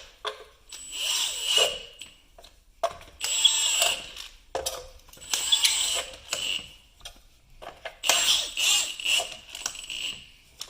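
Power tool run in four short bursts of about a second or two each, with a thin high whine, stopping and starting between bursts as the wheel cover is fitted.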